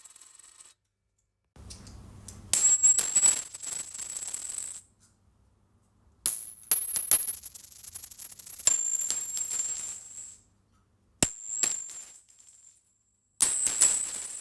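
Coins dropped one take after another, about five separate drops with silent gaps between: each is a clatter of metal coins landing and bouncing, with high ringing tones lingering after the strikes.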